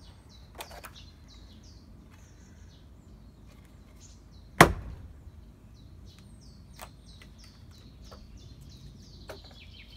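One loud, sharp impact about halfway through: a thrown axe striking the wooden throwing target. A few much fainter knocks come before and after it, and small birds chirp steadily in the background.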